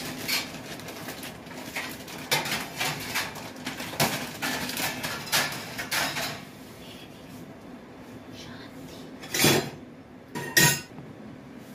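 Steel kitchen utensils and dishes being handled: a busy run of clatters and clinks for the first six seconds or so, then quieter, then two sharp clinks of a steel tumbler about a second apart near the end.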